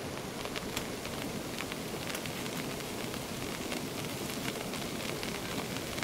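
Steady hiss of heavy rain, with scattered sharp ticks of drops striking close by.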